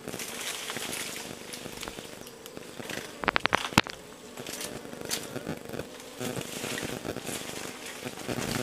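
Asian honeybee (Apis cerana) colony buzzing steadily as the bees swarm over their nest. A quick run of sharp clicks a little past three seconds in.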